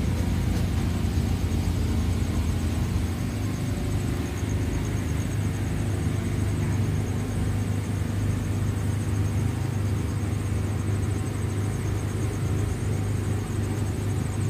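An engine-driven generator running with a steady low hum, unchanging throughout. A faint high, pulsing trill of insects sits above it.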